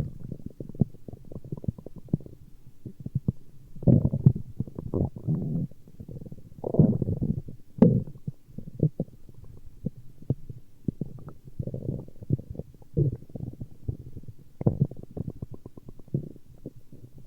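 Stomach growling: an irregular run of gurgling, bubbling rumbles with many quick bubble pops in between. It swells louder about 4 seconds in, again around 7 to 8 seconds, and near the end.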